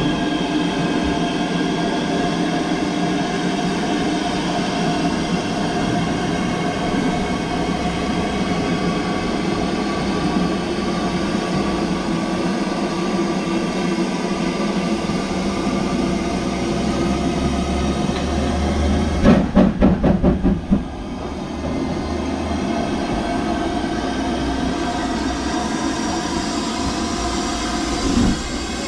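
LNER B1 4-6-0 steam locomotive pulling a train of coaches slowly along the platform, a loud steady running noise. A quick run of loud exhaust beats comes about two-thirds of the way through, and more beats start near the end.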